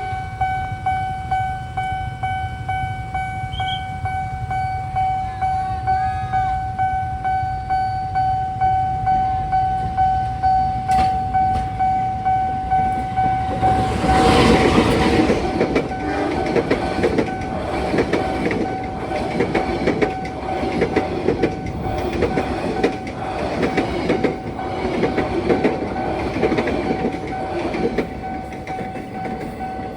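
Railway level-crossing barrier alarm sounding a steady electronic tone with a regular pulse. About thirteen seconds in, a train arrives and passes through the crossing, its wheels clattering rhythmically over the rail joints, while the alarm keeps sounding under it.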